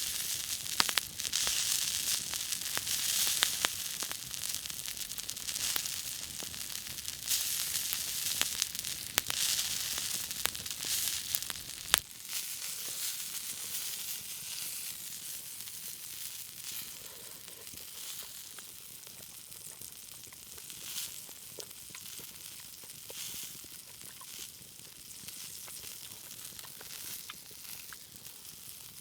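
Meat sizzling on a hot stone grill over a campfire, with sharp crackles and pops. About twelve seconds in, the sound cuts suddenly to a quieter, fainter sizzle.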